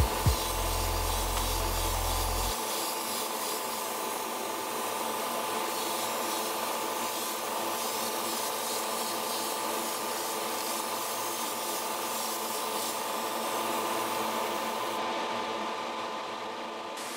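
Hobby spray booth running steadily during painting: an even hiss with a steady motor hum. The highest part of the hiss drops away near the end.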